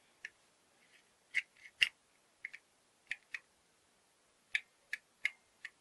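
Repaired glass-door lock worked by a square spindle turned in its follower: sharp metallic clicks, about a dozen, several in pairs, as the mechanism is turned and springs back on its newly fitted wire spring. The lock is working properly.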